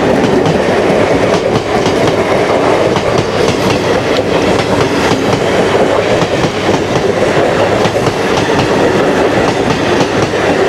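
Mumbai suburban electric local train (Western Railway EMU) running past on the adjacent track at close range: a loud, steady rumble with a dense run of wheel clicks on the rails.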